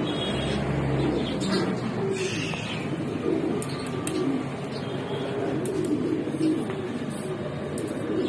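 A flock of domestic pigeons cooing, several birds at once, their coos overlapping without a break.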